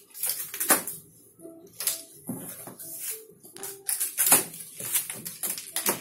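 Irregular sharp clicks and snaps of a cutting tool working at the plastic packing straps and tape on top of a cardboard washing-machine carton.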